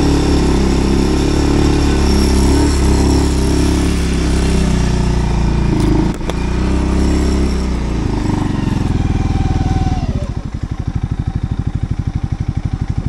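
Segway Snarler AT6L's 570cc ATV engine running as the machine is driven, with a brief knock about six seconds in, then settling back to idle with an even pulsing beat.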